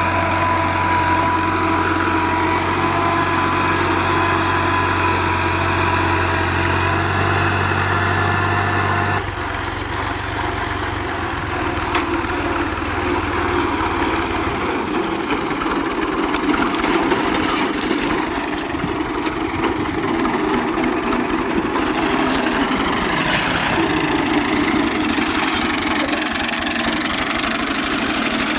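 New Holland tractor's diesel engine running steadily under load as it pulls a heavy-duty tine cultivator through the field. The sound changes abruptly about nine seconds in, turning noisier with less of the steady low drone.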